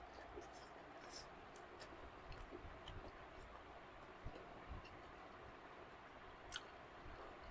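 Quiet eating sounds: chewing and small mouth clicks from someone eating chole bhature and chicken, with a sharper click about six and a half seconds in.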